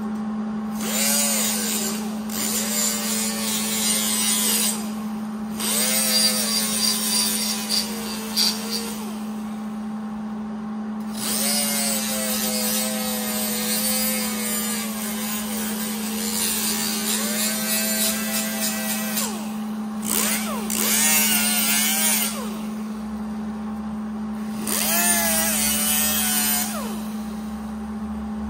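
Right-angle die grinder with a Scotch-Brite disc, run in about seven short bursts. Its whine rises as it spins up and falls as it slows, with a hiss while it runs, as it buffs the edges of sheet-metal headlight bucket panels. A steady low hum runs underneath.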